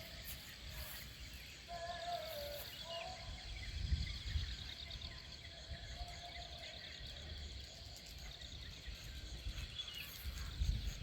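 Rural outdoor ambience: insects chirping in a steady pulsing drone, with a few short bird chirps and a faint wavering distant call about two seconds in, over a low rumble of wind.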